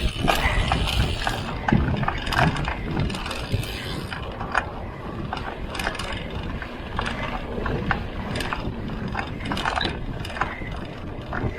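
Mountain bike being ridden over rough ground: irregular clicks and rattles from the bike and the buzzing tick of the rear hub's freewheel ratchet while coasting, over a steady low rumble.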